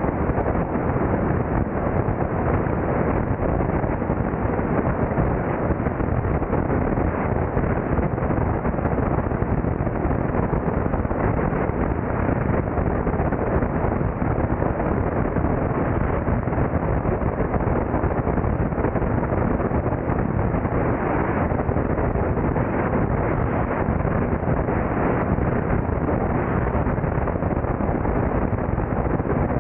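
Steady wind rush buffeting a wing-mounted camera's microphone in flight, with the Beechcraft Debonair's six-cylinder engine and propeller running steadily underneath.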